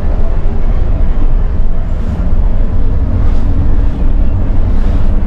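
Bus engine running with road noise: a loud, steady low rumble.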